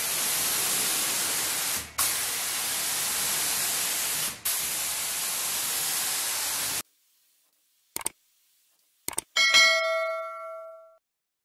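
Compressed-air spray gun with a gravity-feed cup hissing as it sprays a finish, in three long passes with brief breaks about 2 and 4.5 seconds in, stopping about 7 seconds in. After that come a few sharp clicks and a bell-like ding that rings out and fades, the sound of a subscribe-button animation.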